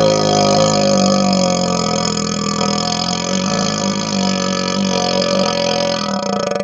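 A long, loud burp blown through a hollow vacuum extension tube, held at one steady low pitch with no break.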